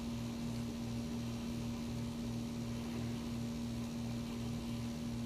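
Steady electrical hum with a low throb about three times a second, like a fan or appliance running.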